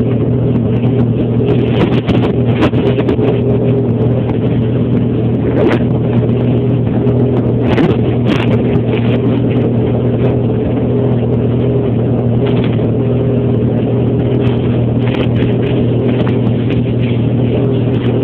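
Snowmobile engine running at a steady, even pitch, with scattered brief knocks.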